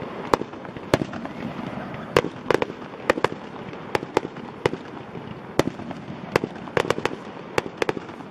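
Fireworks display: a rapid, irregular string of sharp bangs from aerial shells bursting, about two or three a second, some coming in quick pairs.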